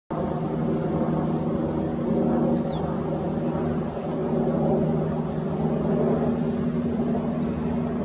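Steady low mechanical drone with a steady hum in it. A few faint, short high chirps cut in over it in the first half.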